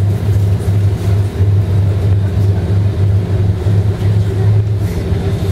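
Route bus running along the road, heard from inside the passenger cabin: a low, steady engine drone with road noise.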